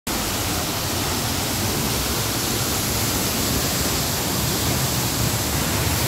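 Tall waterfall pouring down close at hand: a steady, even rush of falling water.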